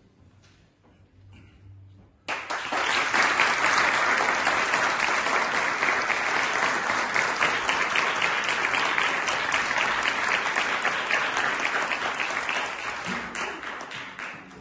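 Audience applauding, starting suddenly about two seconds in and dying away near the end.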